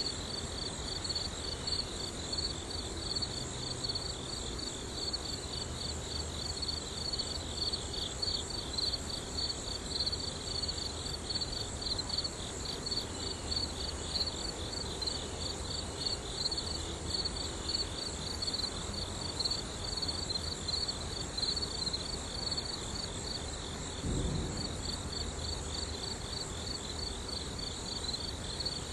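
Crickets trilling steadily, a fast high pulsing chirr that carries on without a break. A single brief low thump comes near the end.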